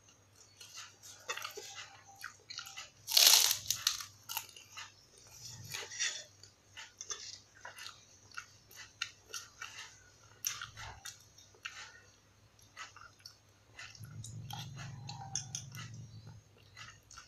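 Crunching and chewing as a person bites into and eats a large kerupuk, an Indonesian fried cracker, in many short crisp cracks. The loudest bite comes about three seconds in.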